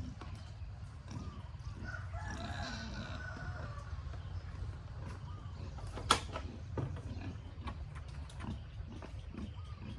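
A farm animal calls once, about two seconds in, over a steady low rumble, with one sharp knock about six seconds in and scattered small clicks.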